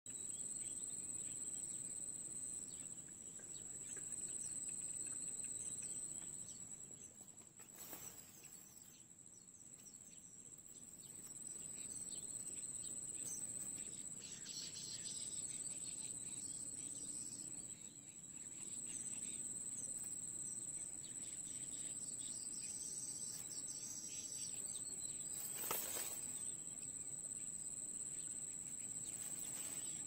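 Steady, unbroken high-pitched trill of insects, like crickets, with a few brief bursts of high chirping now and then and two soft knocks, one about a quarter of the way in and one near the end.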